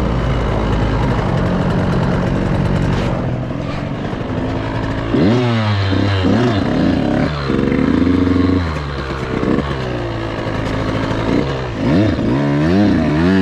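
KTM 85cc two-stroke dirt bike engine running hard under the rider. It holds fairly steady at first, then from about five seconds in its pitch repeatedly climbs and drops back as the throttle is worked and the gears change.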